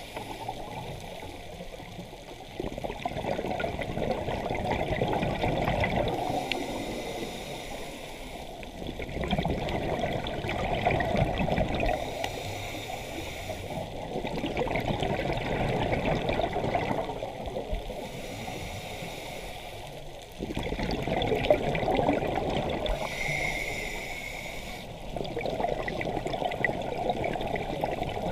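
Scuba diver breathing through a regulator underwater: a hiss on each inhale, then a longer rush of exhaled bubbles, in a slow, regular cycle about every five to six seconds.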